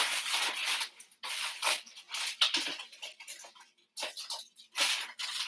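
Rummaging through a kitchen cupboard: an irregular run of rustling, scraping and light knocks as jars and packets are moved about in the search.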